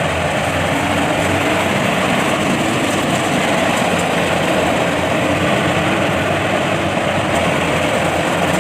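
Yanmar YH850 combine harvester's diesel engine running steadily.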